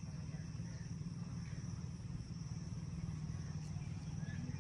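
Outdoor ambience: a steady high-pitched insect drone, like crickets, over a constant low rumble, with no distinct events.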